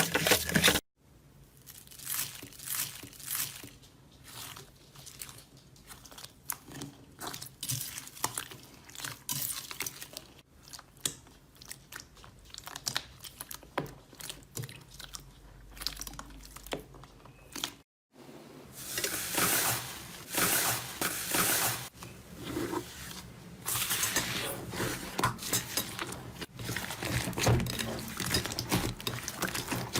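Slime being squeezed, poked and stretched by hand, giving a dense run of small crackling clicks and pops. It is quieter at first, drops out briefly about 18 seconds in, then comes back louder and busier.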